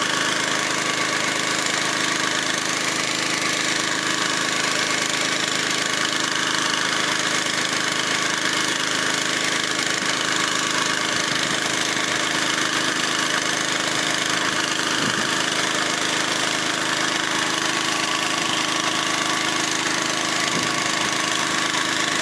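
Engine of a crop-spraying rig, a Honda motor pump carried on an Agria 1900 walking tractor, running steadily at constant speed while pumping spray out to the hose.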